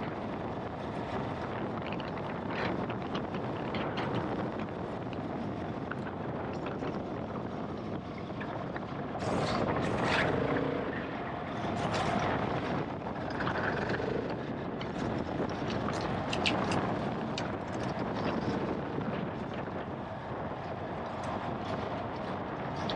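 GasGas ES700 enduro bike's single-cylinder four-stroke engine running as the bike is ridden, with wind noise on the microphone. There are a few louder surges in the middle.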